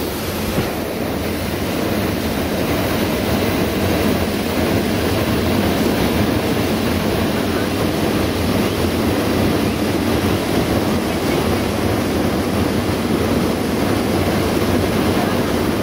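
Hot-air balloon propane burner firing into the envelope, a steady roar that holds without a break.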